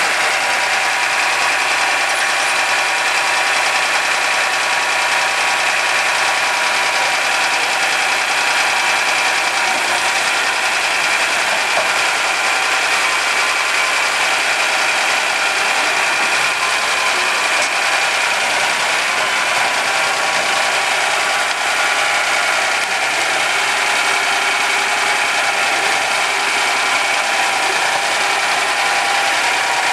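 Engine of a vintage road roller running steadily as the roller is driven slowly along a low-loader trailer bed.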